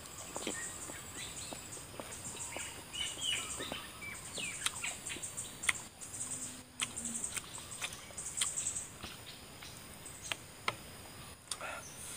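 Close chewing and sharp mouth clicks of someone eating raw, unripe banana. Behind it are birds chirping in short calls and a steady high insect buzz.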